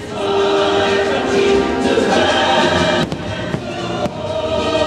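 Fireworks-show soundtrack of a choir singing with orchestral backing, played over loudspeakers, with a couple of brief sharp pops about three and four seconds in.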